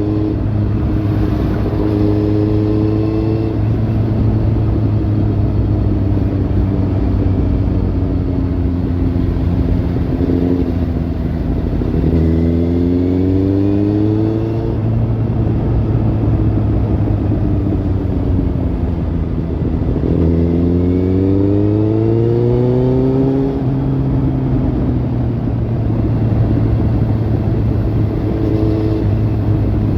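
Kawasaki Z800's inline-four engine through a Lextek slip-on exhaust, running at a fairly steady pitch. Twice it rises in pulls of two or three seconds as it is revved or accelerated, then the pitch drops back.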